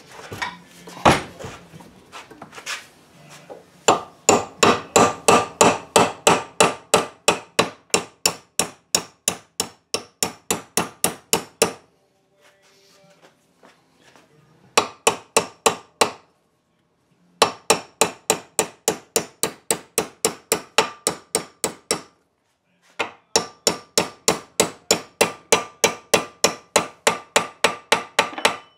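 Hammer tapping a new hinge pin into a door hinge fitted with fresh brass bushings, in long runs of quick, even strikes about four a second with short pauses between, each strike with a slight metallic ring.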